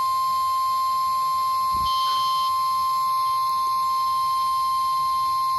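NOAA Weather Radio 1050 Hz warning alarm tone, one steady unbroken pitch sounded as the weekly test of the alarm system. It cuts off suddenly at the end.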